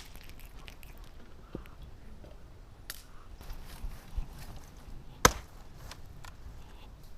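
A single sharp knock about five seconds in, with a few fainter clicks before it.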